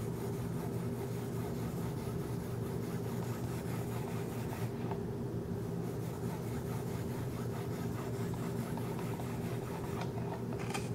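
Soft rubbing of 2500-grit sandpaper, taped to a Wicked Edge ceramic stone, stroked along the edge of a Kershaw Skyline's 14C28N steel blade during final polishing. A steady low hum sits underneath.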